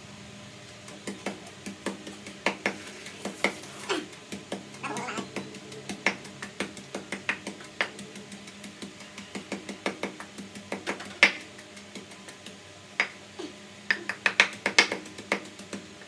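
Wooden pestle pounding green leaves in a wooden mortar: irregular dull knocks, a few a second, starting about a second in.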